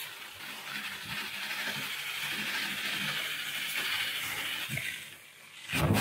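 Steady hiss of a car-wash pressure-washer jet spraying the Jeep Cherokee XJ, heard from inside the car. Near the end it turns louder, with low thuds, as the spray strikes the windshield.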